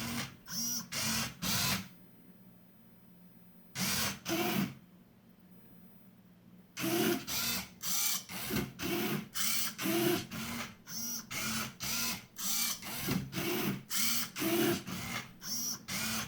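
Servos of a 3D-printed Otvinta Rubik's Cube solver robot whirring in a run of short bursts, about two a second, as the grippers turn the cube for the camera to photograph each side. The run pauses twice for about two seconds, around two and five seconds in.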